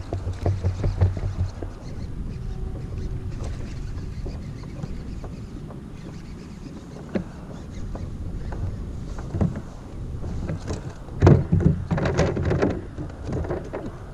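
Knocks, rubbing and clicks of a kayak angler reeling in a small bass: a baitcasting reel being cranked and gear bumping the plastic hull of a Pelican Catch 100 sit-on-top kayak, with a louder cluster of knocks about eleven seconds in.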